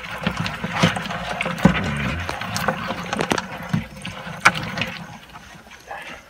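Hermit crabs' shells clicking, rattling and scraping against one another and the plastic bucket, with sharp clicks every second or so, fading near the end. A low steady hum runs underneath.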